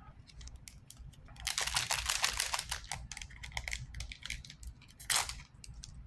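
Crinkling of a foil trading-card pack wrapper and the rustle and click of cards being handled. The crackling is densest about one and a half seconds in, with one sharp crackle near the end.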